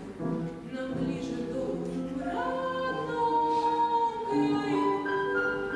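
Voices singing a song with instrumental accompaniment, in long held notes with a slide up about two seconds in.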